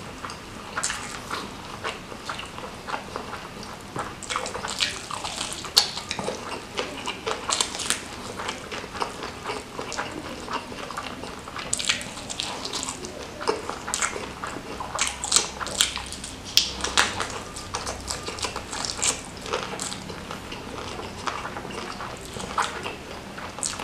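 Close-miked eating of ayam geprek, smashed fried chicken in chilli sambal, with rice: wet chewing and lip-smacking with a steady scatter of irregular clicks and snaps as the chicken is bitten and chewed.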